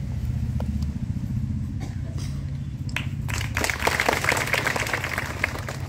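Scattered applause from a small crowd, starting about three seconds in and lasting a couple of seconds, over a steady low rumble.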